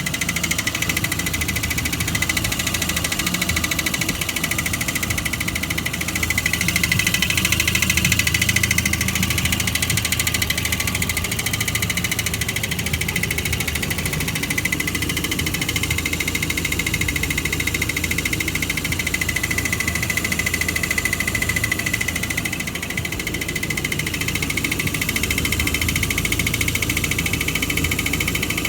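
Toyota 4A-FE 1.6-litre four-cylinder engine running steadily with a rapid, regular knock from inside the engine.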